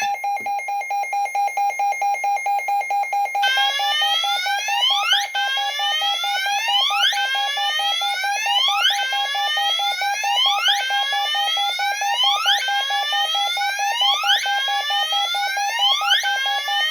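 Gentex Commander fire alarm horn triggered by a Midland weather radio's alert test, sounding loud and unbroken: a steady, rapidly pulsing tone with a rising sweep repeating about once a second over it. The sweep drops out for about the first three seconds, then comes back.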